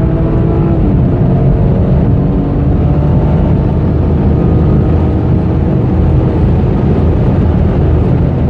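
Car engine running under load, heard inside the cabin with heavy road and wind noise. The engine note drops about a second in, then gives way to steady, loud road and wind noise.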